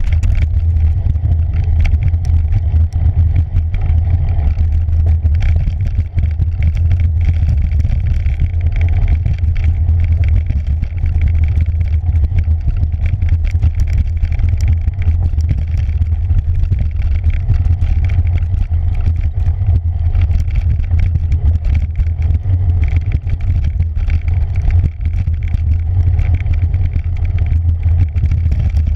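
Cyclocross bike ridden fast over a bumpy dirt singletrack, heard from a handlebar-mounted camera: a steady low rumble of wind and vibration, with constant rattling and clattering from the bike and tyres over the rough ground.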